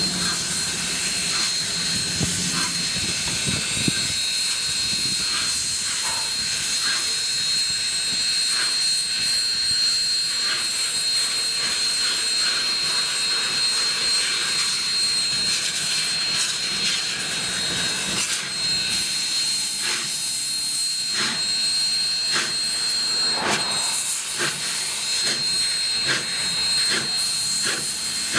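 Union Pacific 844, a 4-8-4 steam locomotive, hissing steam steadily as it rolls slowly, with a steady high tone over the hiss and scattered light clicks.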